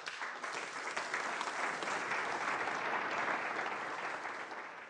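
Audience applauding, a dense, steady clapping that fades out near the end.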